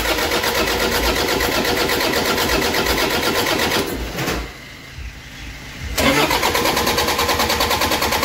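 Starter motor cranking a freshly overhauled Toyota Innova common-rail diesel engine in two spells of about four seconds each, with a short pause between, without it firing. The fuel rail is still empty, and the cranking is bleeding air out to the injectors.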